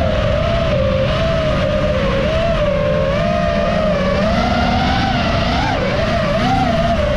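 FPV racing quadcopter's motors and propellers whining, the pitch wavering up and down as the throttle changes, over a steady low rumble.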